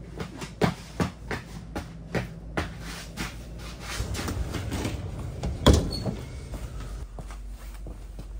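Footsteps and small knocks in a small metal-walled room, then a metal-framed glass door pulled shut with one loud bang a little past the middle.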